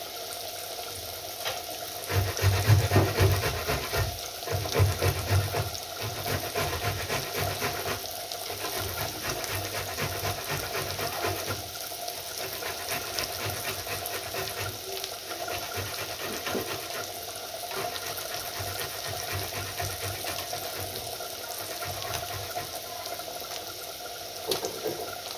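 Tomato halves rubbed back and forth on a small hand grater, a run of repeated wet rasping strokes, heaviest in the first few seconds, over a steady sizzle of boiled potatoes frying in mustard oil.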